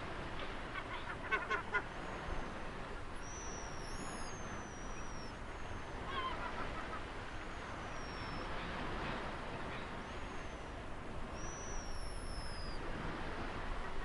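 Steady wash of ocean surf with birds calling over it: several thin, falling whistles and a few short calls near the start and around the middle.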